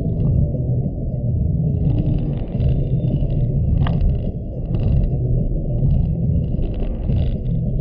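Car cabin noise while driving: the steady low rumble of engine and tyres on the road, with a brief sharp tick about four seconds in.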